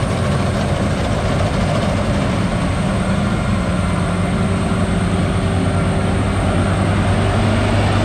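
Combine harvester's diesel engine running steadily under load while it cuts and threshes lodged, storm-flattened rice, the machine hum growing a little stronger near the end as it comes closer.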